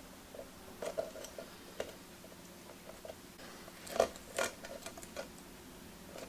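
Faint, irregular ticks and light taps of fingers and nails on a tin can while small pieces of aluminium tape are pressed down inside it, with a sharper tap about four seconds in.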